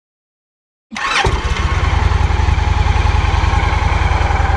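Victory motorcycle's V-twin engine push-button started after a second of silence: a brief crank, then it catches and settles into a steady idle.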